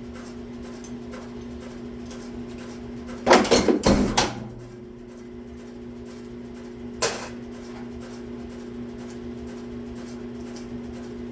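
A small punch press's motor hums steadily while the press cycles. A quick series of loud clanks comes about three seconds in, and a single clank comes about seven seconds in, as the press strokes.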